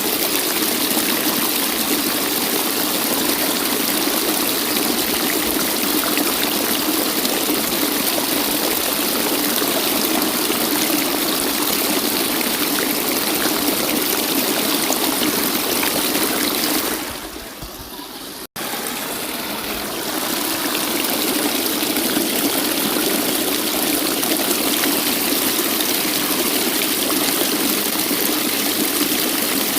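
Waterfall rushing steadily. About 17 seconds in the sound dips, cuts out for an instant, then comes back.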